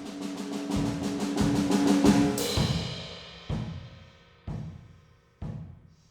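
Drum set: a fast roll on a pitched tom swells for about two and a half seconds and ends in a cymbal crash that rings and fades. Single low drum strokes follow, about one a second.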